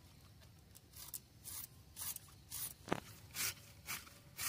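Fresh cabbage being sliced very thin on a boti, the blade cutting through the crisp leaves in short, crisp strokes about two a second, starting about a second in, with one sharper click near the middle.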